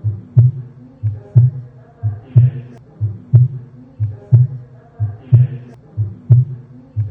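Heart sounds heard through a stethoscope over the aortic valve area: a steady lub-dub about once a second, the second sound of each pair the louder.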